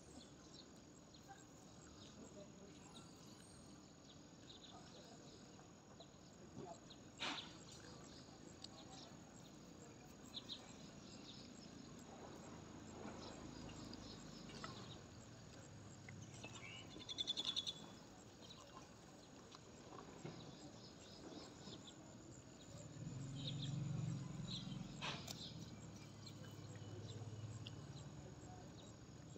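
Faint outdoor ambience with insects chirping, including a short pulsing trill about halfway through. Two sharp clicks and a low rumble near the end sit over it.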